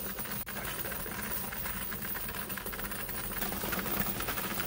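1979 Glory CP-9 coin counter counting coins: its motor hums steadily under a fast, continuous clatter of coins running through the mechanism and dropping out of the chute.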